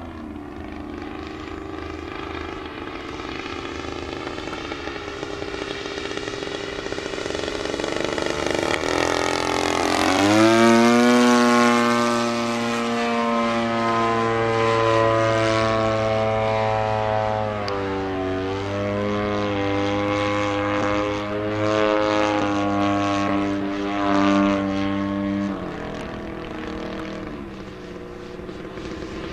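Engine and propeller of a radio-controlled aerobatic model plane buzzing as it flies overhead. It rises in pitch as it approaches, is loudest about ten seconds in with the pitch dropping as it passes, then holds a steady drone with a few dips in pitch before falling away near the end.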